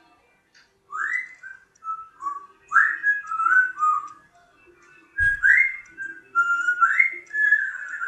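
African grey parrot whistling a tune in short pitched notes, grouped in several phrases, many notes swooping up at the start. A brief low thump about five seconds in.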